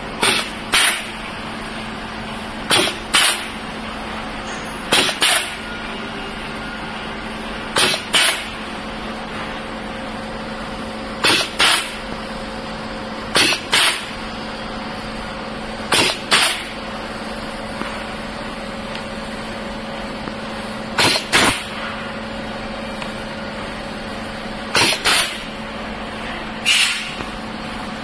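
Pneumatic core wire stripping machine working through wires: about ten times, a few seconds apart, its air cylinders stroke with a quick pair of sharp air bursts as each conductor is clamped and stripped. A steady low hum runs underneath.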